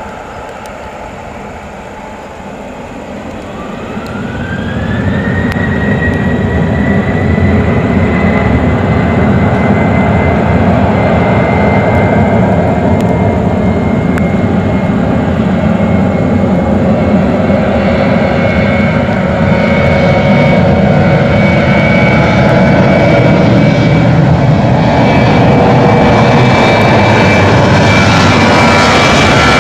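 Boeing 737 jet engines spooling up to takeoff power: a whine rises in pitch over about two seconds and the noise swells, then both hold steady and loud as the airliner rolls down the runway. The noise grows a little louder again about two-thirds of the way through.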